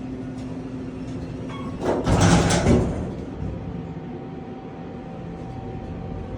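Otis elevator's sliding doors closing: a rush of noise lasting about a second, about two seconds in, over a steady hum.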